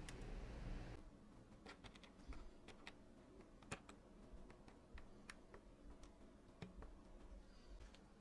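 Faint, irregular small clicks and ticks of metal tweezers working against tiny phone parts as an earpiece speaker and flex board are prised out of a smartphone's midframe, with one sharper click a little before the middle.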